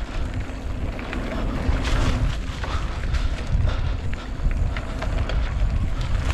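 Wind rumbling on the microphone over the clatter of a mountain bike riding a rough dirt trail, with many short rattles and knocks from the bike as it goes.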